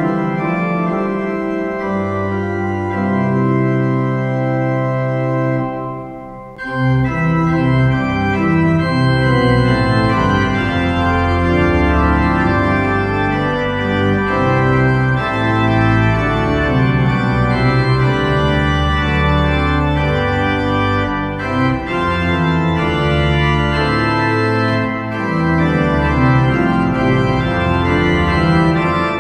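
Church organ playing slow, sustained chords, with a brief lift between chords about six seconds in.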